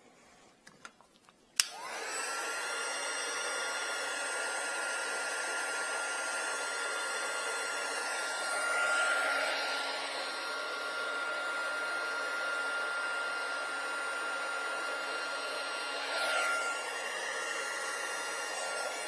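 Handheld hot air gun switched on with a click about a second and a half in, then running steadily with a constant whine over its fan noise as it shrinks heat-shrink tubing over wiring. The rush of air swells briefly twice.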